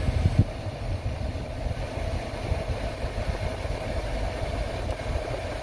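A Jeep Gladiator's 3.6-litre V6 engine running, heard from inside the cab as a steady low engine noise. There are a couple of knocks in the first half second.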